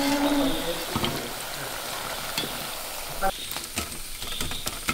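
Hot oil sizzling and bubbling in a brass frying pot as a wire spider ladle stirs it. In the second half, a few sharp metal clinks of the ladle against a steel mesh strainer.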